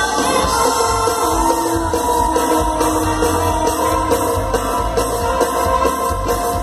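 Live band playing dance music through a PA system, with a singer over a steady beat, heard from within the crowd.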